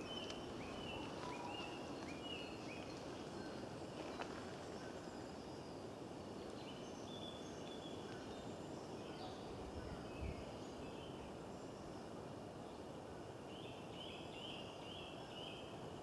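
Wild songbirds singing over a steady outdoor background noise: a quick run of short repeated notes at the start and again near the end, with fainter scattered calls between. A soft low bump comes about ten seconds in.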